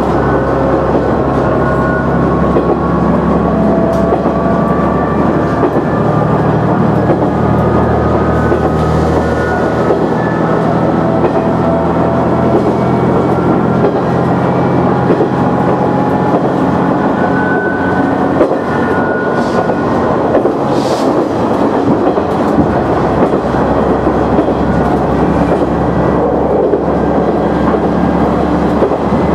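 KiHa 100 diesel railcar running along the line, heard from the driver's cab: a steady diesel engine drone and the rumble of the wheels on the rails, with a faint whine that rises slowly in pitch.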